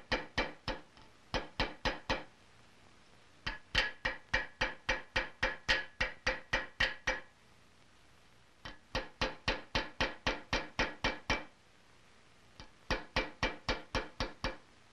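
Small hammer tapping a rifle trigger against a metal anvil to shape it, sharp ringing blows about four to five a second, in runs of a few seconds broken by short pauses.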